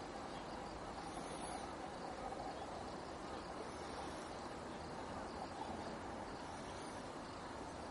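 Steady outdoor background noise: an even hiss with no distinct bird calls.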